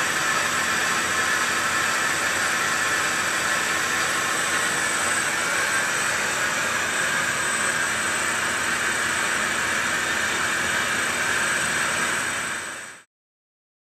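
Mori Seiki MS-850G metal lathe running while machining a cast-iron chuck back plate: a steady mechanical hiss and whir with a faint constant hum beneath, fading out near the end.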